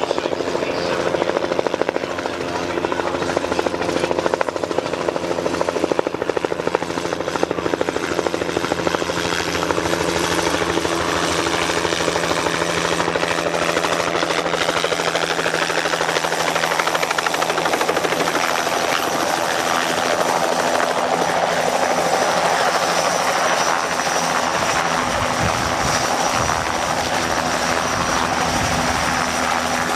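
Bell 206 JetRanger helicopter, its turbine whine and two-blade rotor chop running steadily as it descends to land close by. A low rumble comes in near the end as it nears the ground.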